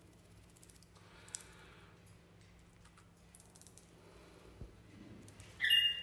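Faint scattered clicks and ticks of parrots' feet and beaks on the bars of a wire cage, then a short, loud ringing sound near the end.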